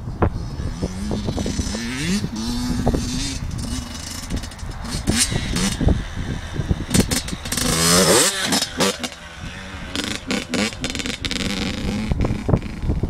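Yamaha YZ85 two-stroke motocross bike riding, its engine revving up and falling back again and again, with a sharp climb in pitch about eight seconds in.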